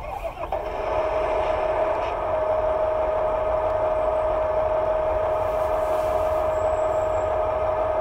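RC model Fendt 1050 tractor running: a steady high whine with a hiss around it comes up within the first second and holds even.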